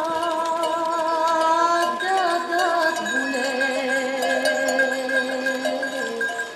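Background music: a song sung in long, wavering held notes. A lower held note joins about three seconds in.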